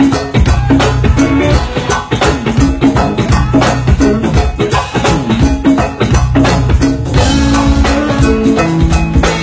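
A live band playing a number with a steady drum beat and a bass line; the high end grows brighter near the end.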